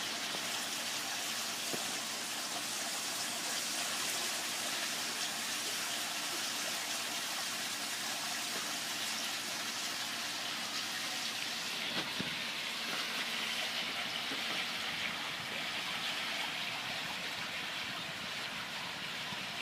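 Waterfall water rushing steadily, with a single brief knock about twelve seconds in.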